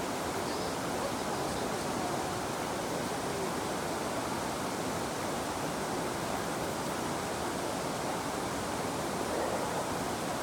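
River water flowing steadily, an even wash of water noise that does not change.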